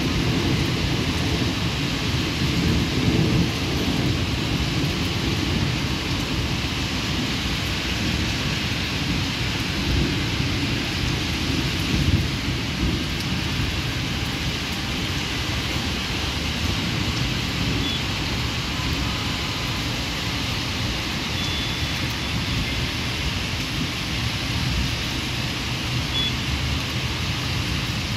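Heavy rain falling steadily, with a low rolling rumble of thunder that is strongest in the first twelve seconds or so and then eases.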